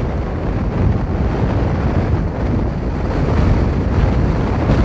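Gale-force wind, over 40 knots, buffeting the microphone in a loud, constant rumble that swells and eases with the gusts, with heavy surf breaking underneath.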